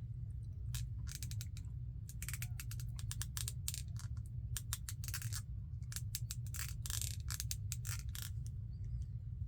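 A tool scraping and scratching on a plastic cap in many short, irregular strokes, over a steady low hum.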